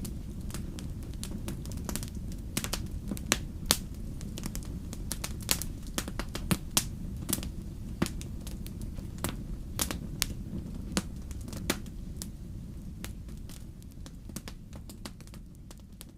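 Wood fire in a fireplace crackling, with irregular sharp pops over the low, steady rumble of the flames. It fades down near the end.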